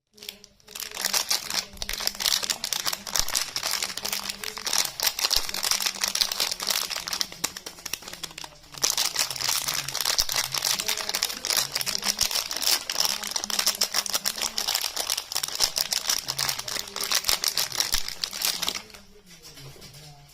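Soap packaging being crinkled and unwrapped by hand, a dense, continuous crackling with a brief pause about nine seconds in, dying down near the end.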